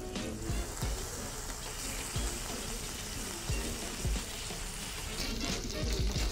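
Bacon sizzling and frying in a pan: a steady hiss that grows brighter about five seconds in, with background music underneath.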